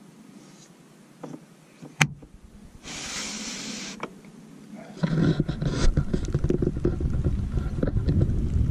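A sharp click about two seconds in and about a second of hiss, then, from about halfway, a loud rumbling of wind buffeting the microphone outdoors.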